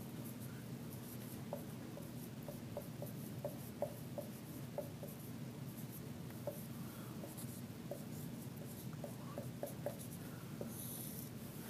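Dry-erase marker squeaking and tapping on a whiteboard as words are written: a faint run of short, irregular strokes over a steady low room hum.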